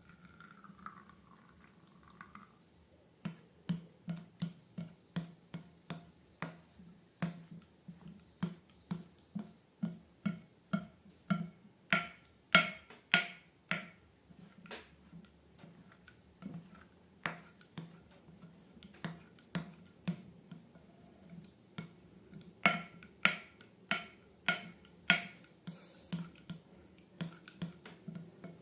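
Slime being squeezed and poked by hand, giving a steady run of wet popping clicks, about two a second, that start a few seconds in and are loudest in two stretches.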